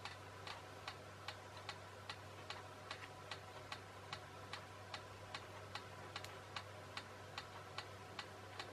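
A clock ticking steadily and faintly, about two and a half ticks a second, over a low steady electrical hum.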